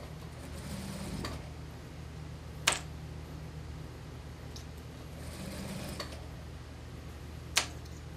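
Unicorn computerized industrial sewing machine at work on a mink coat seam: a steady low motor hum, two short passages of hiss, and two sharp clicks about five seconds apart that are the loudest sounds.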